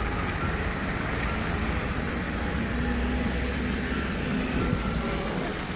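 Steady wind and traffic noise: wind buffeting the microphone, with cars on the expressway.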